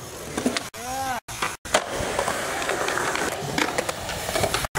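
Skateboard wheels rolling on concrete, with several sharp clicks and taps of the board. A brief voice call sounds about a second in, and the sound drops out abruptly several times.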